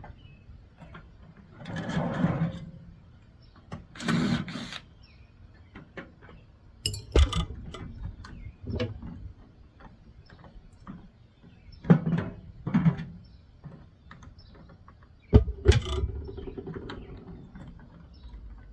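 Hand tools and loose metal parts knocking, scraping and rattling at irregular intervals as a microwave oven is taken apart for scrap, with a few sharp clanks among them.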